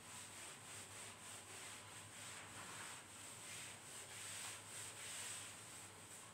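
Whiteboard eraser wiping marker writing off a whiteboard: a faint rubbing hiss that comes and goes in repeated strokes.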